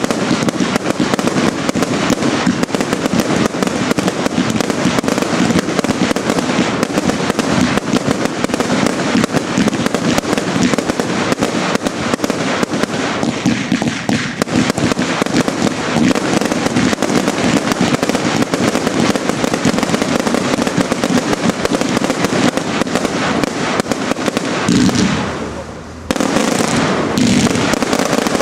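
Fireworks display: batteries firing comets and aerial shells in rapid, continuous succession, a dense run of bangs and bursts. It drops away briefly about 25 seconds in, then resumes.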